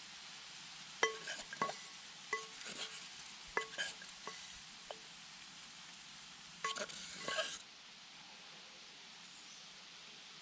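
Wooden stick clinking against a metal cooking pot: about ten sharp, ringing taps in irregular groups as fried burdock pieces are fished out, stopping a little past halfway.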